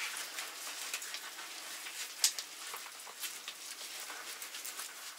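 Light crackling and scattered small clicks of gloved hands rubbing and handling slabs of raw pork fat (salo) with salt and spices, with one sharper click a little over two seconds in.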